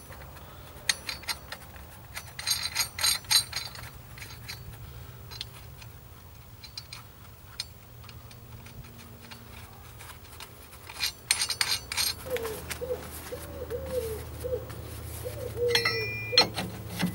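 Metal clinks and taps from a slide hammer puller being fitted to a wheel hub and its wheel nuts put on, in clusters separated by quieter stretches.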